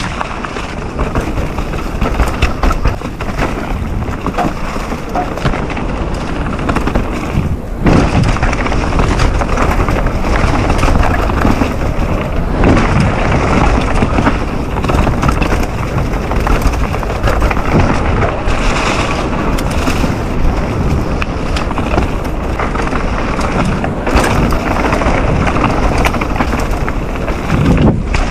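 Mountain bike ridden hard down a rough enduro trail: steady tyre noise over dirt and rocks, broken by frequent knocks and rattles from bumps, with wind buffeting the microphone.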